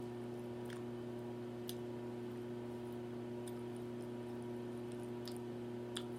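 Quiet chewing with a few faint, short mouth clicks and smacks, over a steady low electrical hum.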